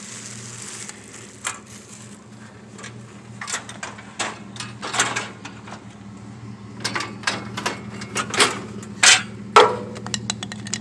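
Rusty metal frame pieces being handled and loaded onto a scrap trailer: a string of knocks and clanks that gets busier in the second half, with a few sharp loud clanks near the end, over a steady low hum.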